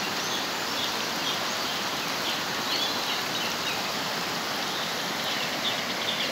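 Floodwater of a swollen river rushing steadily, with short high chirps scattered over it.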